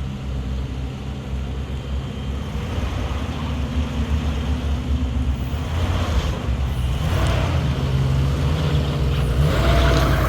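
Off-road vehicle's engine running low and steady as it crawls over rocks, growing a little louder toward the end.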